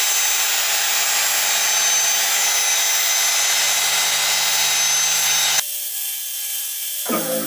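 Rotary polisher running steadily while compounding car paint, a dense steady whir with a faint whine in it. It cuts off abruptly about five and a half seconds in, and music starts near the end.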